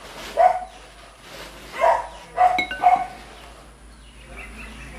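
A dog barking: four short barks, the last two close together.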